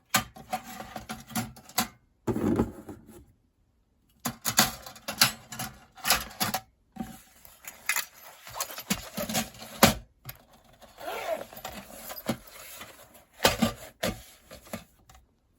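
Thin metal parts of a compact fire pit clinking, clattering and scraping as they are handled, with irregular sharp clicks in short bursts. The sound stops dead a few times, about three, seven and ten seconds in.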